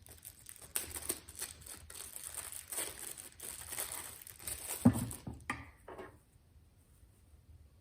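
Plastic packaging crinkling and tearing as a coffee maker's water filter cartridge is unwrapped and handled. There is one sharp knock about five seconds in and a couple of clicks just after, then the handling stops.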